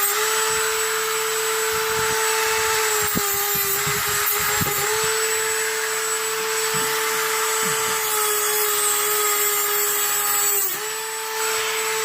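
Black & Decker rotary tool with a cutoff wheel running at high speed, a steady high whine over a grinding hiss as it cuts through protruding steel screw tips. The pitch dips briefly a few times as the wheel bears on the metal.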